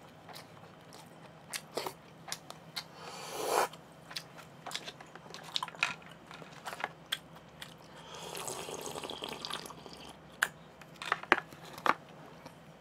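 A person chewing food close to the microphone, with scattered light clicks and taps from handling a plastic container and spoon. There is a short swell of noise about three seconds in and a longer, softer one around eight seconds.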